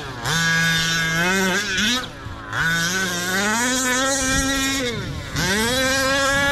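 Losi 5T 1/5-scale RC truck's 45cc OBR two-stroke gasoline engine running hard, revving up and dropping back several times as the throttle is worked, then holding high revs for the last second or so.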